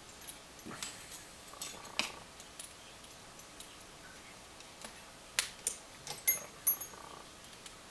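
Small metal clicks and clinks as a just-picked padlock is locked back up and the picking tools are handled, with a louder run of clinks with brief metallic ringing about five and a half to seven seconds in.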